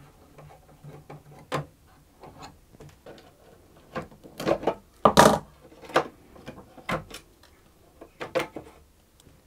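Scattered small clicks, scrapes and knocks from taking old mechanical pegs off a cello: screws being undone and the metal peg units worked out of the wooden pegbox. The loudest knocks come about halfway through and again near the end.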